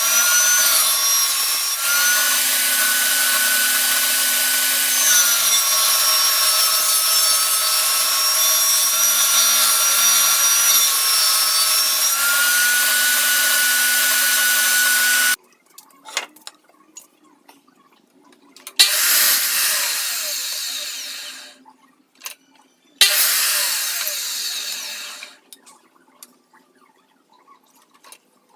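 Electric power tool cutting wood. It runs for about fifteen seconds, its pitch dipping and recovering under load, and stops abruptly. It is then switched on twice more for short runs of two to three seconds, each winding down.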